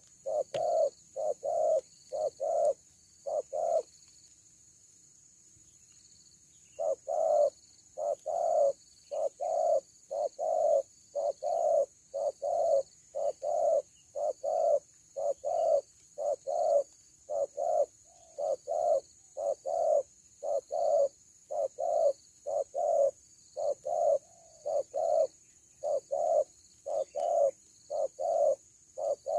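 Spotted dove cooing: deep coos repeated in quick groups of about two a second, breaking off for about three seconds near the start and then going on without a pause. A steady high insect drone runs underneath.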